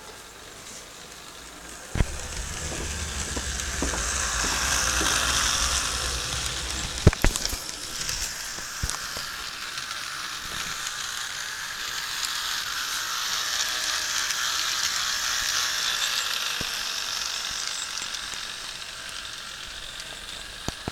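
HO scale model electric locomotive running around the layout track: a steady mechanical whir with clicking and rattling from wheels and motor. It swells twice as the train passes close, with a few sharp clicks near the start and a loud clatter of clicks about seven seconds in.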